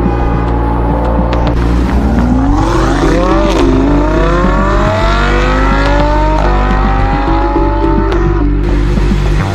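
Racing car engine accelerating hard over a steady low engine hum. Its pitch climbs in three long pulls, dropping back between them like gear changes.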